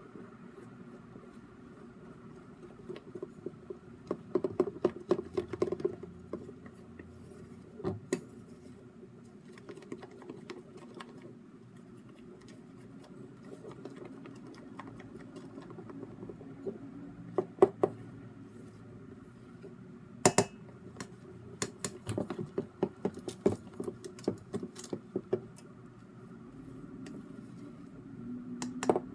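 Spatula scraping and knocking against a stainless steel mixing bowl while folding cake batter, in scattered clusters of sharp clicks over a steady low hum.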